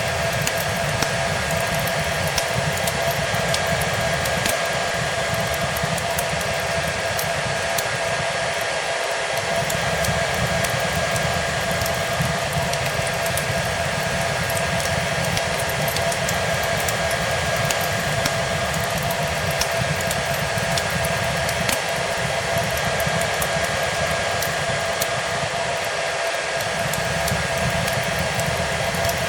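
A hair dryer running steadily, its whooshing noise carrying a constant motor whine, mixed with the light crackle of a fireplace fire.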